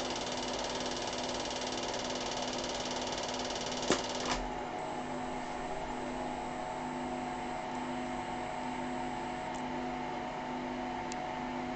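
Steady mechanical hum with hiss. Two sharp clicks come about four seconds in, after which the hum goes on slightly quieter and smoother.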